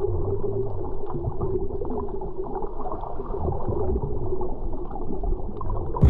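Muffled underwater sound of water movement and bubbles as a swimmer dives past, picked up by a submerged camera. Everything is dull, with nothing high-pitched, and it ends suddenly.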